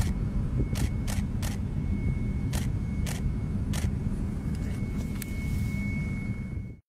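Low, steady rumble of a jet bomber's engines as it climbs away after takeoff, with camera shutters clicking every half second or so and a faint steady high tone. The sound cuts off abruptly near the end.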